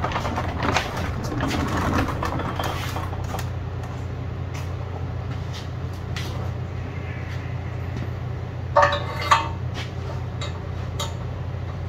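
Metal clanks and knocks from the steel axle housing and tools being handled, over a steady low hum. There are scattered knocks in the first few seconds and a loud double clank about nine seconds in.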